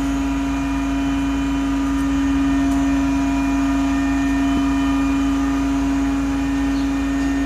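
Crane engine running steadily while it holds a lifted load, a strong, even mechanical hum over a low rumble.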